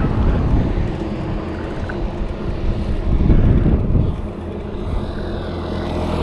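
Road traffic: a low vehicle engine rumble that swells louder about three seconds in as a vehicle passes close, then settles into a steady engine hum.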